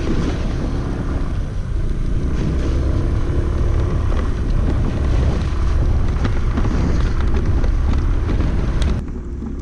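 Aprilia Storm 125 scooter's single-cylinder engine running under way, mixed with wind noise on the microphone and the tyres on a wet, rough road. The noise drops suddenly near the end.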